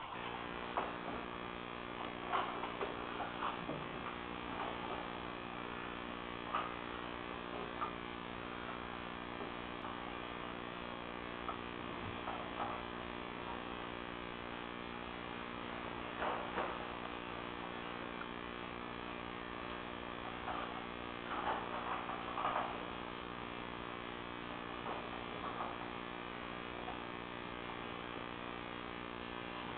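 A steady electrical hum with many even overtones, with scattered short clicks and rustles over it.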